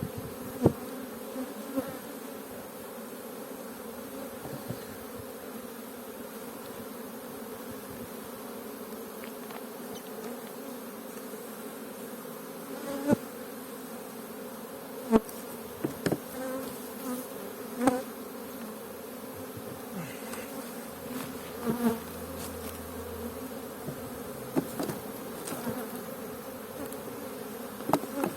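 Honeybees humming steadily around an open hive, with a few short sharp knocks scattered through.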